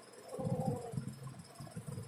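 A cat's low, rough rumbling vocal sound, starting about half a second in and lasting about a second before it fades.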